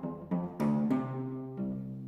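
Cello and piano playing classical chamber music softly. A new note is struck sharply about half a second in, followed by a long low bowed cello note held under shorter notes above it.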